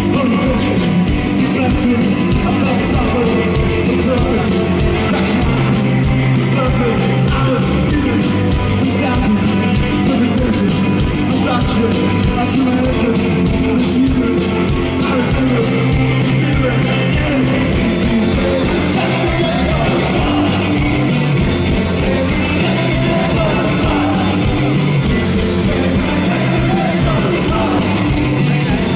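Live rock band playing loudly through a festival PA, heard from the crowd: electric guitars, bass and drums, with a man singing.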